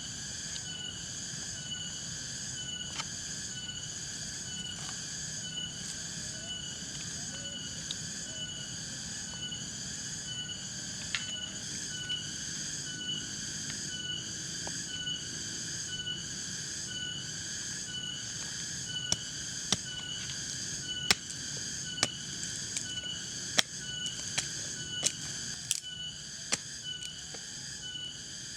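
Chorus of night insects chirping in a steady, evenly repeating pulse, with a low rumble underneath. In the second half, sharp clicks and snaps come every second or so.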